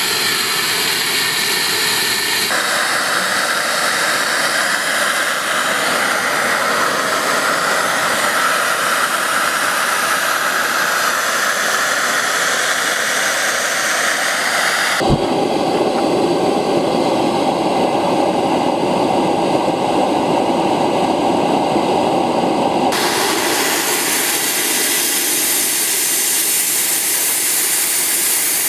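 Steam blasting from the boiler blowdown valves on the sides of a 7½-inch gauge live steam locomotive, a loud steady hiss as the boiler pressure is released after shutdown. The hiss shifts in tone abruptly a few times, with a short knock about halfway through.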